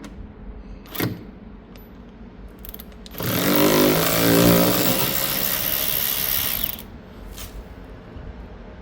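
Parkside PAR 4 A1 4 V cordless ratchet's motor running for about three and a half seconds, starting a few seconds in. There is a single click about a second in and another near the end.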